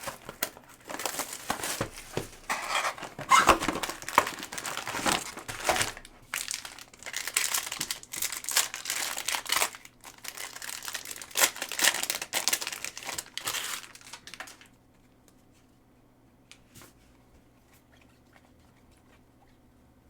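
Packs of Panini Mosaic football trading cards being torn open, their wrappers crinkled and ripped in quick irregular handling. The crinkling stops about two-thirds of the way in, leaving only a faint steady hum.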